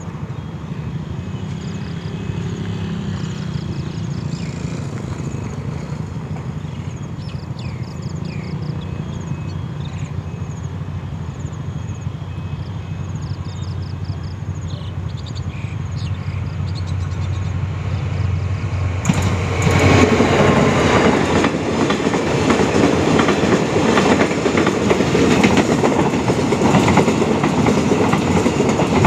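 Diesel-electric freight locomotive approaching under power, its engine drone slowly growing louder. About two-thirds of the way in, the train reaches the crossing and the loud, steady clatter of loaded container wagons rolling over the rail joints takes over.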